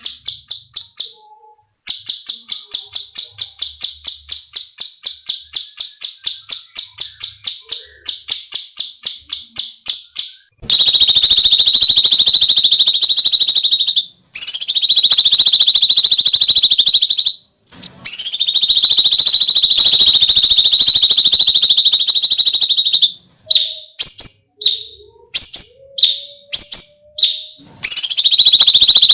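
Cucak cungkok songbird calling: a fast run of sharp, high repeated notes for about ten seconds, then a long shrill screeching trill broken by two short pauses, a few short separate shrieks, and the shrill trill again near the end.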